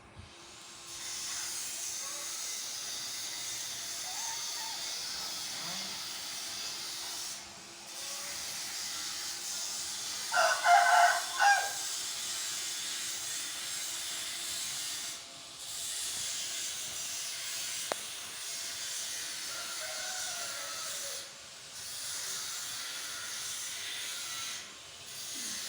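Steady high-pitched hiss that breaks off briefly every several seconds, with one loud farm-animal call lasting about a second, about ten seconds in.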